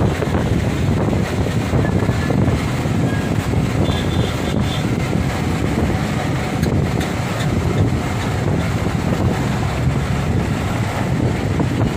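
Steady rushing noise of the flooded Sutlej River's fast, silt-laden water, with wind buffeting the phone's microphone.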